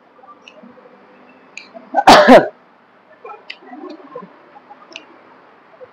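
A woman sneezes once, a short loud burst about two seconds in, over faint room noise.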